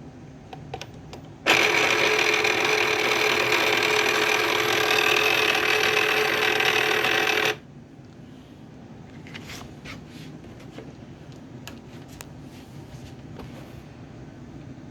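Cricut cutting machine making a loud grinding noise as it fails to load its cutting mat: a steady, buzzing grind with a held tone that starts abruptly about a second and a half in and cuts off suddenly six seconds later. Faint clicks follow.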